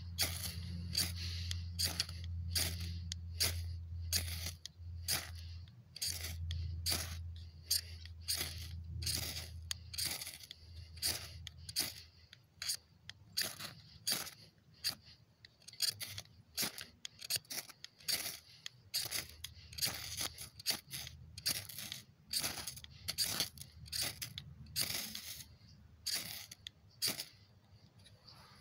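A metal striker scraped again and again along a fire-starting rod, throwing sparks onto tinder: dozens of short, sharp scrapes, roughly one or two a second.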